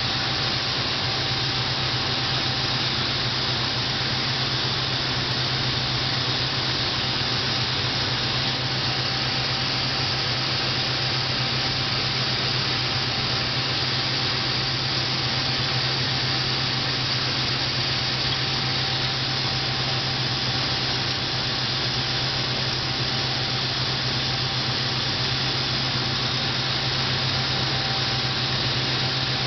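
Steady factory-floor machinery noise from an electric-motor armature assembly line: an even hiss with a constant low hum and a faint steady tone above it.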